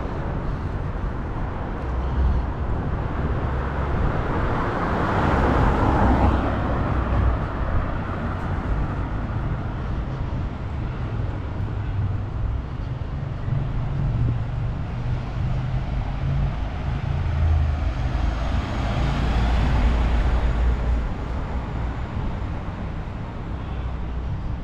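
City street traffic: a steady rumble of cars, with two vehicles passing close by, one about five seconds in and another near twenty seconds.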